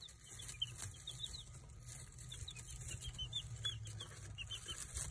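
Baby chickens peeping: many short, high chirps from several chicks, a few each second, over a faint low hum.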